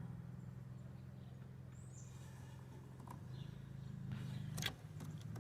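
A steady low hum with several pitches close together, with a sharp click about four and a half seconds in and a fainter click a little earlier.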